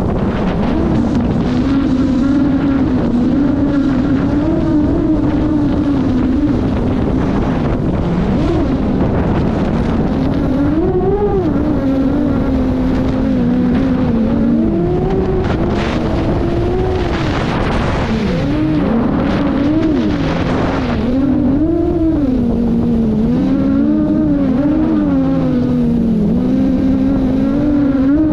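FPV quadcopter's motors whining, the pitch rising and falling over and over as the throttle changes through the dive, over a steady rush of air.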